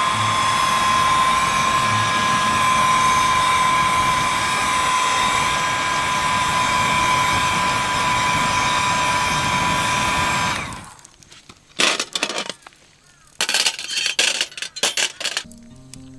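Small handheld battery blower running steadily with a high motor whine, blowing air onto burning charcoal. It switches off about eleven seconds in, followed by a few seconds of sharp clicks and clatter.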